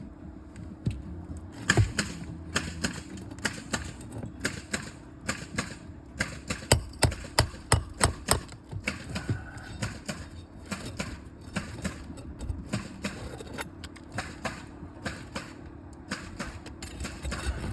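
A three-tab asphalt shingle being worked loose by hand and tool to pull it out of the roof: irregular sharp taps, clicks and knocks, coming in quick runs around the middle, over a faint steady low hum.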